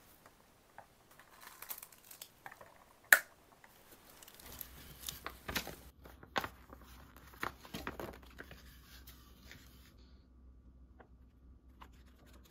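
Paper rustling and crinkling as a sheet of contact-paper packaging and its white backing are handled and marked with a pencil. Before that, a few light taps and one sharp click about three seconds in.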